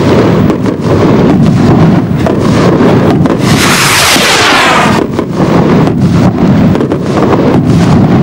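Festival stick rockets launched by hand: a loud rushing hiss with short breaks and a sweeping whoosh about four seconds in.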